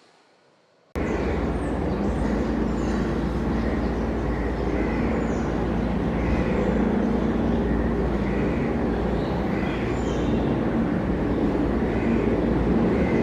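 Steady outdoor background noise, a low rumble and hiss, cutting in abruptly about a second in, with faint short chirps recurring about once a second.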